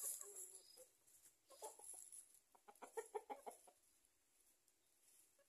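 Chickens clucking quietly: a couple of short calls about a second and a half in, then a quick run of clucks around three seconds in.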